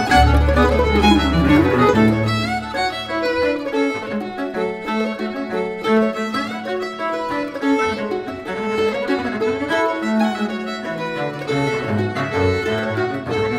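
Instrumental background music with a sustained melody; a deep bass part drops out about two seconds in and comes back near the end.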